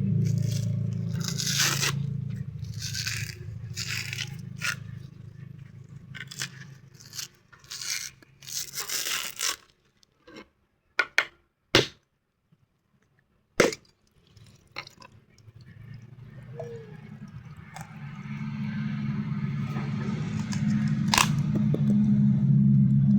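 Repeated scraping strokes, about one a second, over a steady low hum during the first half. Then a few sharp clicks in near silence around the middle, and the low hum comes back loudly near the end.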